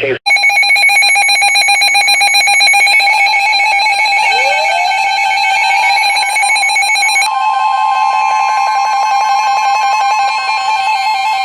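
Weather alert radios sounding their electronic alarm tones at the start of a NOAA Weather Radio warning broadcast: a loud, rapidly pulsing alert tone, with a rising tone sliding in about four seconds in and a second steady, higher tone joining about seven seconds in.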